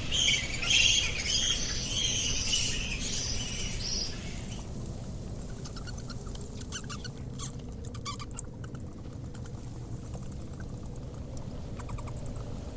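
Bats screeching in rapid, choppy high squeals, giving way about four seconds in to on-and-off trains of very fast high clicks and chirps, the sound of echolocation calls.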